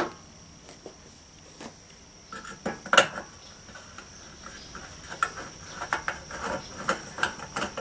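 Screwdriver turning the screws of a fan motor's small metal terminal box cover: scattered light metal clicks and scrapes, with one sharper click about three seconds in and quicker ticking toward the end.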